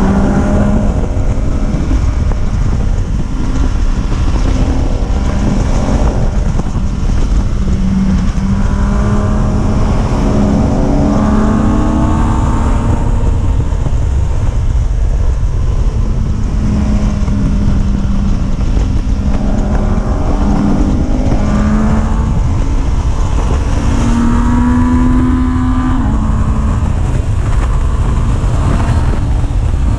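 A vehicle's engine running, its pitch rising and falling every few seconds, under heavy wind buffeting on the microphone.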